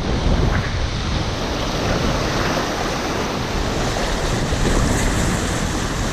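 Rushing whitewater all around an inflatable kayak running a rapid, a steady loud wash of water noise.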